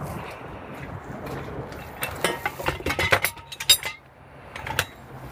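Metal hand tools and sockets clinking against each other as they are handled in a tool tray. There is a quick run of sharp clinks in the middle and a single one near the end.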